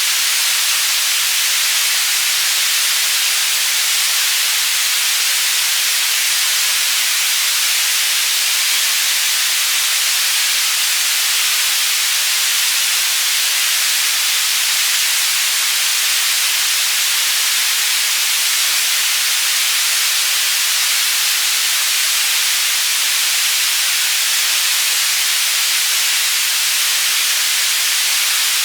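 Tinnitus-masking white noise panning between the left and right channels: a steady, unbroken hiss, strongest in the treble and thin in the bass.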